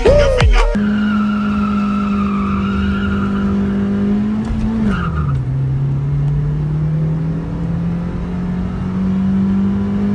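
Opel Vectra B 2.0's engine under acceleration, heard from inside the cabin. It holds a steady note, drops in pitch about five seconds in as it shifts up a gear, then slowly climbs again as the revs build.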